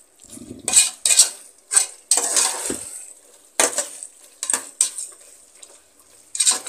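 A metal ladle stirring and scraping a thick frying onion-tomato masala in an aluminium pressure cooker: irregular scrapes and clinks against the pot over a light sizzle.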